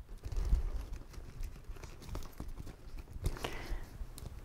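Faint rustling with scattered light clicks as bag materials are handled, with a slightly louder cluster of clicks about three and a half seconds in.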